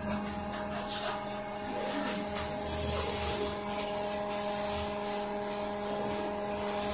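Steady electrical hum and whine inside a LiAZ-5280 trolleybus, several fixed tones that hold their pitch, with a single sharp click about two and a half seconds in.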